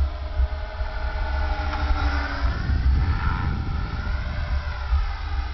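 Electric HK 450 RC helicopter (a T-Rex 450 clone) in flight. Its brushless motor and rotor whine rises and falls in pitch as it manoeuvres, over a steady low rumble.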